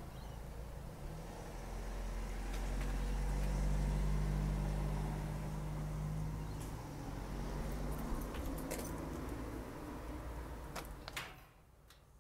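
A motor vehicle passing on a nearby road: a low engine hum swells for a few seconds and fades away. A few light clicks and handling noises are mixed in. Near the end the background drops away suddenly to quiet.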